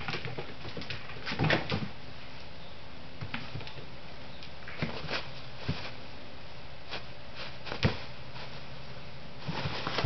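Paper towels rustling and crumpling as a cat pounces on, rolls in and bites a pile of shredded paper, in irregular bursts with a few soft thumps, over a low steady hum.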